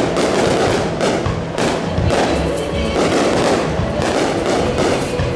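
Fireworks going off in a rapid, unbroken barrage of bangs and crackles, with music playing underneath.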